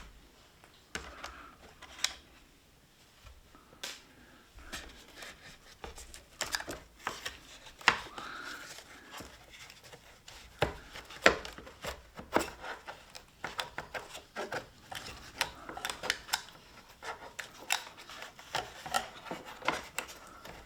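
Irregular small clicks, taps and scrapes of hand work inside an opened iMac: a screwdriver turning out T10 Torx screws and loose metal and plastic parts being handled while the internal speaker is removed. The sharpest clicks come about eight and eleven seconds in.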